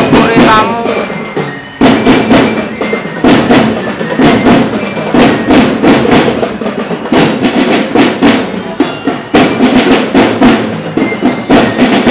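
Marching drum band playing: a steady beat of drum strokes with a bell lyre (marching glockenspiel) picking out short high notes over it.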